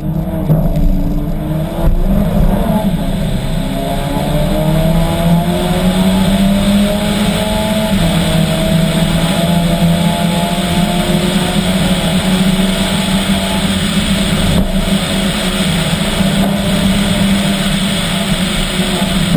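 2016 Volkswagen Golf R MK7's turbocharged four-cylinder engine pulling hard through its DSG gearbox, heard from inside the car. Its pitch climbs and drops with gear changes and throttle, with a dip about two seconds in, over steady tyre and gravel road noise.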